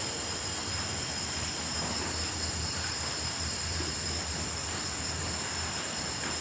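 Steady chorus of crickets, a continuous high-pitched trilling that does not change, over a low steady rumble.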